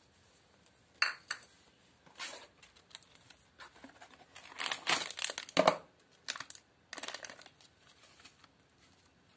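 Foil spice packet crinkling in scattered bursts as it is handled and torn open, loudest about halfway through. A short knock about a second in.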